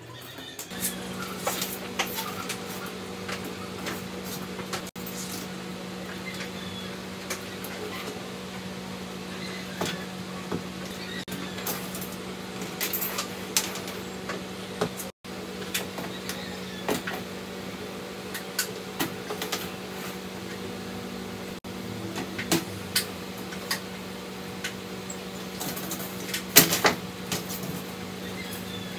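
Light metallic clicks and clinks of thin crimped stainless-steel sheet strips being handled and pressed together into a grill plate, scattered irregularly, with a cluster of louder clinks near the end. A steady low hum runs underneath from about a second in.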